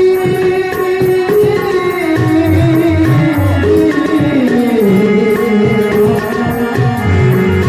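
Gujarati devotional bhajan music: a tabla-style hand-drum rhythm under a sustained melodic lead that slides downward in pitch about halfway through.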